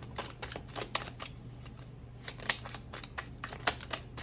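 Tarot cards being shuffled by hand: a run of quick, irregular flicks and snaps of card stock.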